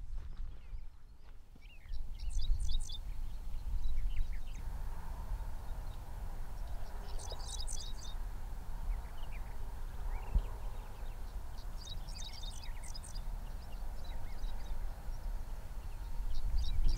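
A songbird singing a short, high chirping phrase, repeated about every five seconds, over a steady low rumble of wind on the microphone.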